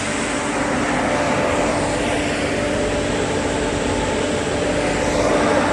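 Veneer and plywood sanding line running: sanding rollers, vacuum dust fan and polishing wheel make a steady broad drone with a steady hum through it.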